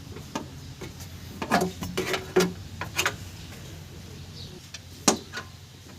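Hand tools and metal engine parts clinking and knocking in an irregular series of sharp clicks, a cluster about one and a half to three seconds in and the loudest single knock about five seconds in, as the engine is being taken apart.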